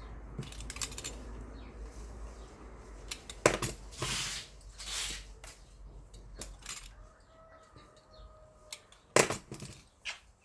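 Scissors snipping and scraping the insulation off electrical wires: scattered sharp metallic clicks and short rasping scrapes, the loudest snaps about three and a half seconds in and again near the end.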